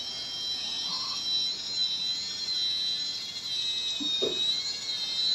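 Small electric motor of a homemade toy tractor whining steadily at a high pitch as it pulls a trolley loaded with bricks, the pitch wavering slightly; a faint knock about four seconds in.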